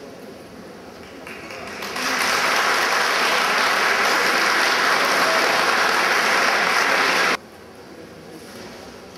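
Audience applauding. The clapping builds about a second in, holds steady, then cuts off suddenly about two seconds before the end.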